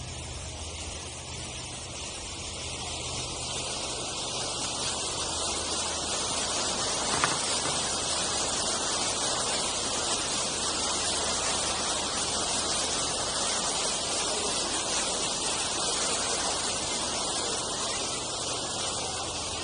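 Steady rushing of water churned up along a cruising houseboat's hull, mixed with wind noise, over a faint low engine hum. It grows louder over the first few seconds, then holds steady.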